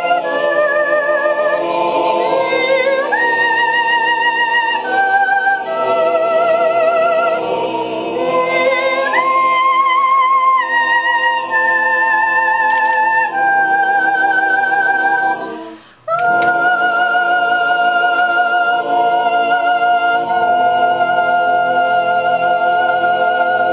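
Mixed choir singing a cappella: full chords of held, vibrato-laden notes shifting from chord to chord, a brief break about 16 seconds in, then one long held chord.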